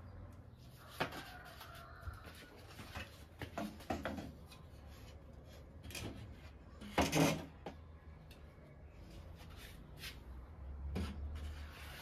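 Wooden slatted folding chair and table being handled and set up: scattered knocks, clacks and scrapes of wood on wood, the loudest cluster about seven seconds in.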